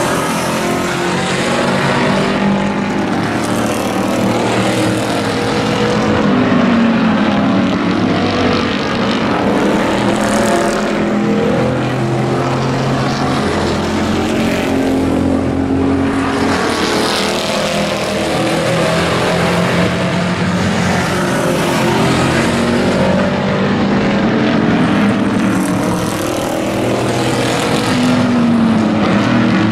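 A pack of hobby-class race pickup trucks running hard around an oval track: several engines at once, their pitches rising and falling as the trucks come through the turns and down the straights.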